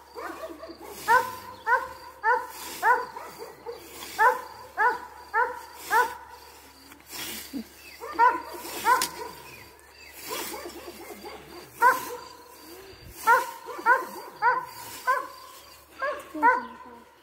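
A dog barking repeatedly in quick runs of two to four short barks, with pauses between runs. Under the barks, the swish of a scythe cutting through tall grass.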